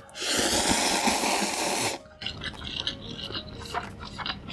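Close-miked loud slurp of cheese buldak instant noodles lasting about two seconds, then wet chewing with many small clicks and smacks.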